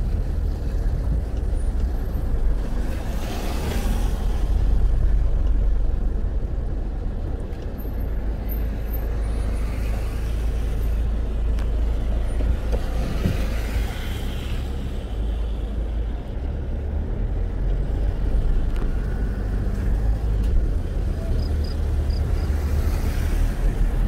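Steady low rumble of a car's engine and road noise heard from inside the cabin while driving slowly on wet streets. Now and then a swell of tyre hiss comes through.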